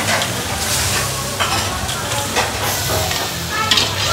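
Lobster frying in a steel wok: hot oil and sauce sizzling while a metal ladle scrapes and clinks against the pan, over a steady low hum.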